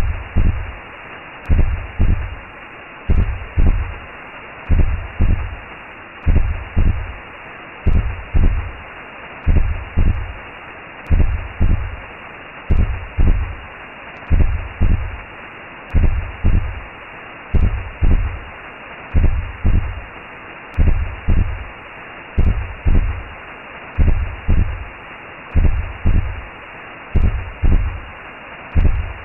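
Recreated womb sound: a slow heartbeat of low double thumps, about one beat every second and a half, over a steady whooshing hiss.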